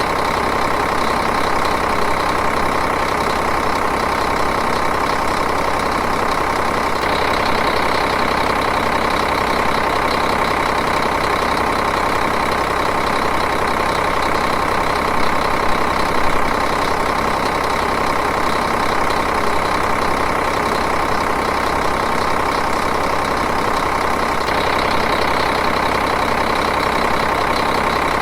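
Diesel engine idling steadily with an even, rapid rhythm.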